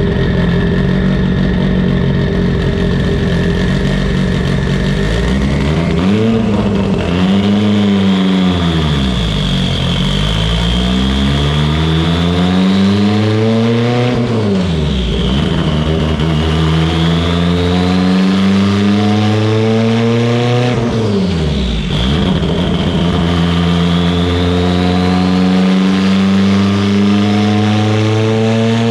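Turbocharged Mitsubishi Lancer Evolution VIII with a built 2.0-litre engine and a Garrett GTX3584RS turbo, revving: engine speed climbs and falls several times, with sharp drops about two thirds and three quarters of the way through. A high whine rises and falls along with the engine.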